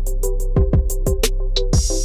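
Background music: an electronic track with a steady drum-machine beat and bass.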